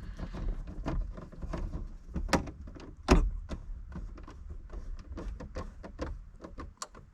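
Irregular clicks and knocks of plastic overhead-console parts being handled and pressed into place, with two louder snaps about two and a half and three seconds in.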